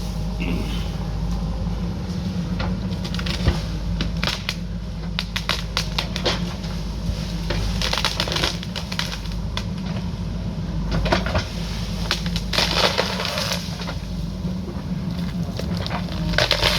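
JCB backhoe loader's diesel engine running steadily while rock and soil crunch and crackle, in repeated bursts, as the machine digs and breaks into the hillside.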